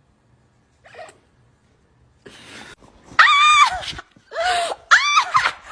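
A dog giving three high-pitched, drawn-out yowling cries in the second half, each rising and then falling in pitch; the first is the loudest.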